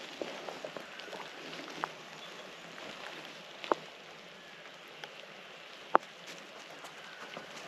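Footsteps crunching through dry bush litter, with a few sharp, irregular twig snaps, the loudest about six seconds in.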